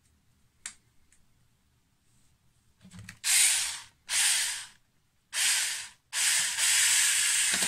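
Cordless drill-driver driving a screw into the reel on a speargun: three short bursts about a second apart, then a longer run of about three seconds.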